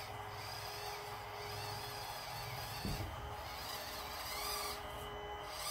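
Axial SCX24 1:24-scale crawler's tiny electric motor and gears whining faintly as it crawls slowly, with a light knock about three seconds in.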